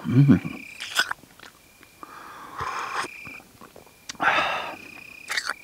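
A man breathing out audibly in two long, sighing exhales after a sip of hot coffee, the second stronger than the first. A few small clicks sound and a thin, steady high tone comes and goes behind them.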